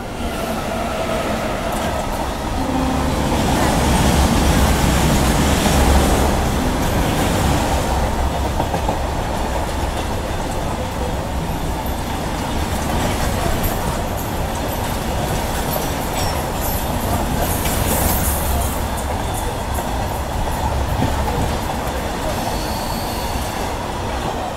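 Brindavan Express passenger train running along the track: a steady rumble and rattle of the wheels and coaches, loudest about five seconds in.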